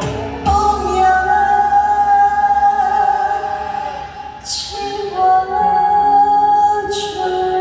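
Music: a singer holding long, drawn-out notes over accompaniment, with two short hissing sounds about four and a half and seven seconds in.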